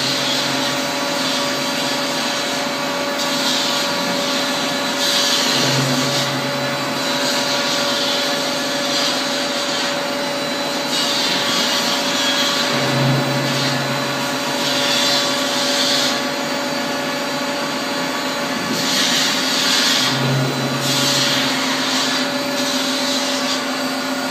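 Hydraulic vertical mixer running empty, its agitator turning in the steel tank: a steady mechanical whine and hum, with a deeper hum coming back about every seven seconds and higher rushing bursts in between.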